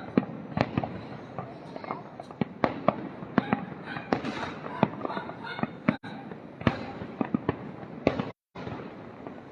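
Fireworks display: a rapid, irregular string of sharp bangs and crackles, several a second. The sound drops out completely for a moment near the end.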